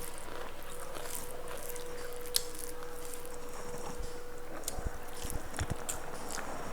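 A person chewing and eating food close to the microphone, with scattered small clicks and soft thumps, more of them in the second half.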